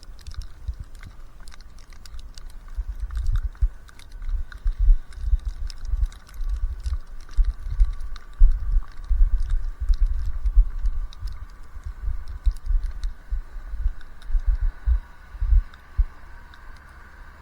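Footsteps crunching through deep fresh snow: irregular low thuds with small crisp clicks, stopping shortly before the end.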